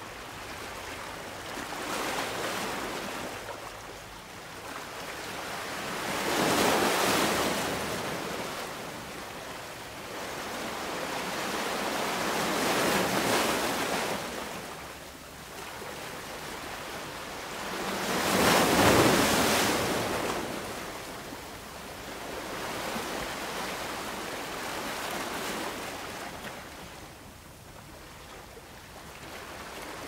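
Ocean surf: waves breaking and washing in, the rushing swelling and fading every five or six seconds. The biggest surges come about a quarter and two thirds of the way through.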